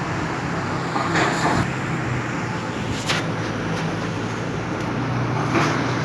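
Diesel engines of demolition excavators running steadily at a work site, with a few short noisy bursts and a sharp click about three seconds in.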